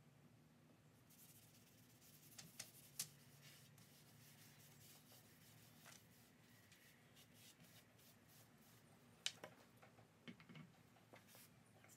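Near silence with a few faint clicks and light knocks from wooden boards being handled and set down; the sharpest comes about nine seconds in.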